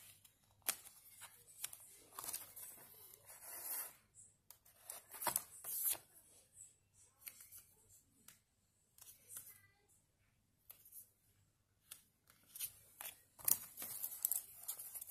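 Paper being handled on a journal page: intermittent rustling and scraping of photo prints and paper, with a few sharp clicks and taps as pieces are laid down and pressed.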